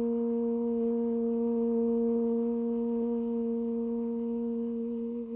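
A single low tone held perfectly steady, with its even overtones, cutting off abruptly about five seconds in.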